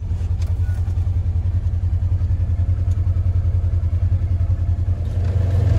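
Engine of a small vehicle running steadily at low speed: an even, low pulsing throb that grows a little louder near the end.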